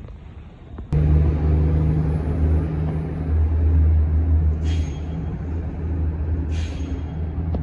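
City bus engine running with a loud, steady low drone that starts suddenly about a second in. Two short bursts of air hiss come through it, one about halfway and one near the end.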